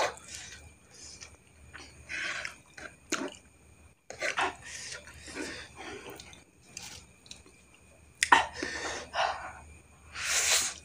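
Close-miked eating of a heap of fried instant noodles: irregular wet chewing and mouth noises, with a fork clicking and scraping on the plate. A loud slurp comes just before the end as the noodles are sucked up straight from the plate.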